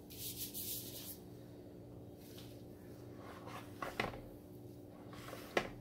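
Faint handling sounds as the wet-painted clock face is moved on the table: a soft rustle about the first second, then two light knocks, about four and five and a half seconds in, over a steady low hum.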